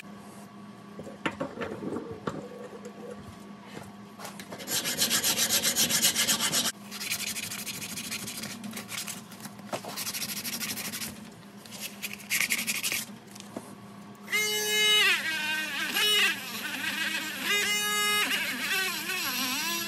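Old asbestos gasket being scraped off the flange of a Porsche 924 Turbo wastegate housing held in a vise: a dry rasping scrape in strokes, loudest about five to seven seconds in. Near the end a cordless rotary tool with a small abrasive bit whines in two short bursts, its pitch wavering as it bites into the metal.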